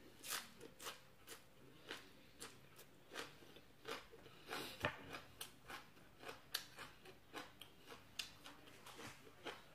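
Close-up chewing of crunchy raw vegetables: a steady run of crisp crunches, about two a second.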